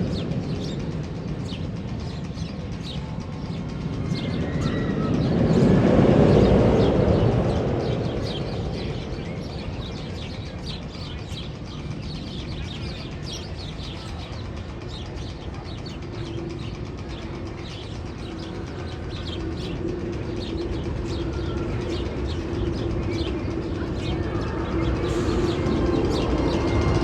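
Roller coaster train rumbling along its track, swelling loudest about six seconds in and fading, then building again near the end. Birds chirp throughout.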